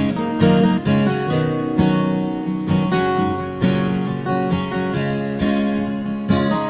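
Acoustic guitar strumming chords in an instrumental break between sung lines of a country-style song.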